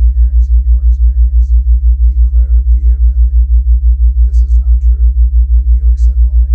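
Deep, loud tone pulsing steadily about six times a second: a theta-wave brainwave-entrainment beat.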